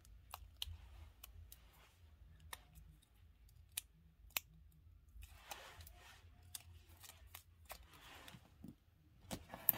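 Faint crinkling and small sharp clicks of a printed label tape being bent and its backing peeled off by hand, with a few louder clicks near the end.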